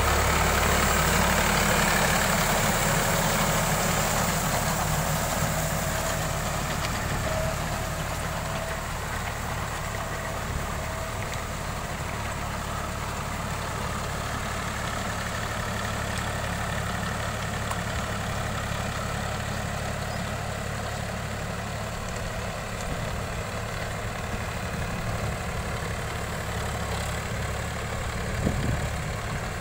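Diesel tractor engine running steadily under load while pulling a rotary tiller through a flooded paddy field, growing fainter over the first several seconds as the tractor moves away. A brief low knock near the end.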